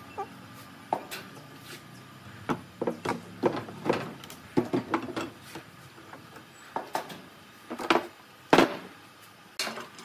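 Irregular knocks and clacks of wood being handled and worked by hand, a dozen or so, with the loudest knock about eight and a half seconds in.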